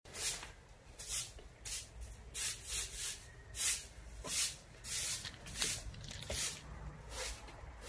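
A broom sweeping stone patio tiles: a steady run of bristle swishes, a bit more than one a second.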